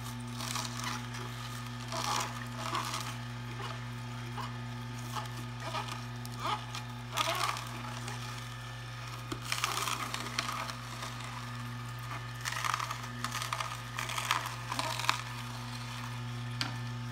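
Omega J8006HDS single-auger masticating juicer running with a steady low motor hum while its auger crushes celery stalks, giving irregular bursts of crunching and snapping.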